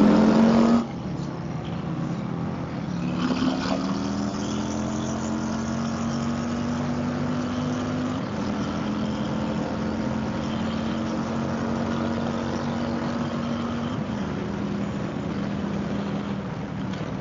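Indian Chieftain's V-twin with a 126 cubic-inch big bore kit, heard from the rider's seat, revving hard and rising in pitch under full throttle. About a second in it drops off suddenly. From about three seconds in it pulls again and settles into a steady run, with wind rushing past.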